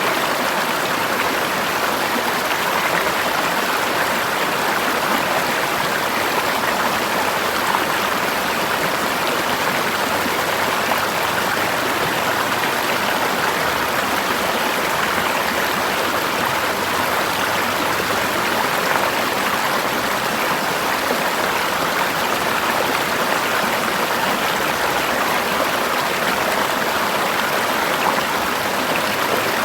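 A forest river flowing over rocks: a steady, even rush of water that does not change.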